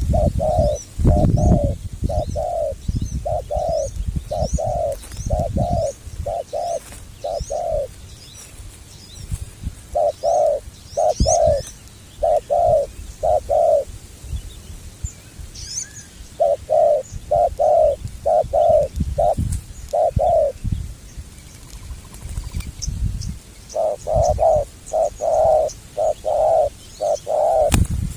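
Spotted doves cooing in four runs of short, rapid notes with pauses between them, while small birds chirp faintly in the background.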